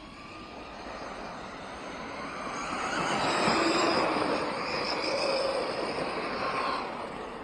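Several electric RC trucks driving past, their motors whining and gliding up and down in pitch over the noise of tyres on the track. The sound swells to its loudest about halfway through, then fades.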